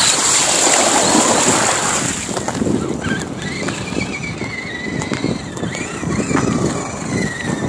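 Water splashing and spraying as an Axial SCX10 RC Jeep crawler drives through a mud puddle, close to the camera, starting suddenly and lasting about two seconds. After that a thin wavering whine carries on over irregular crunching as the crawler drives on gravel.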